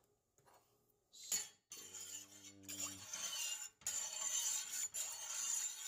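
Metal spoon stirring liquid in a stainless steel pot, clinking and scraping against the pot with swishing brine. There is a single sharp clink about a second in, and steady stirring from about two seconds on.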